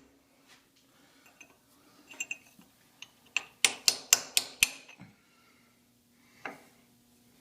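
Hammer tapping a chisel, metal on metal, to knock a valve seat out of a cast-iron cylinder head. A few light clicks come first, then a quick run of about six sharp strikes around the middle, and one more strike near the end.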